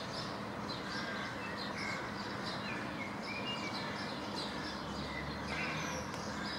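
Small birds chirping: many short high chirps, with a few brief whistled notes midway, over a steady hiss of background noise.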